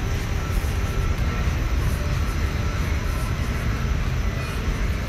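Steady low outdoor rumble with a faint hiss above it, unchanging throughout, with no distinct events.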